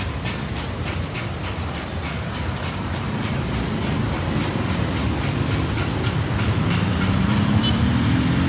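Steady street-traffic rumble from passing motorbikes and cars. In the second half an engine note rises gradually in pitch as a vehicle accelerates.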